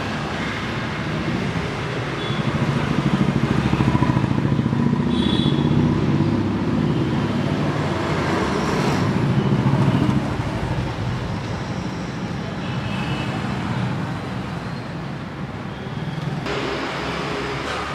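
KTM Duke single-cylinder motorcycle engine running as the bike pulls away. It is strongest in the first half and drops off about ten seconds in as the bike moves off.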